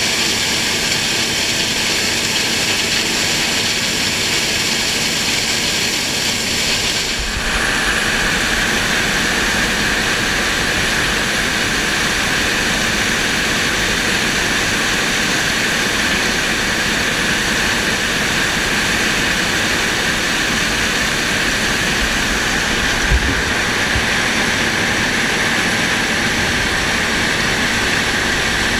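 New Holland CR8070 combine harvester running steadily under load while harvesting corn, a continuous machine noise with no rhythm. About seven seconds in, the sound's character changes abruptly, and a single low thump comes through near the end.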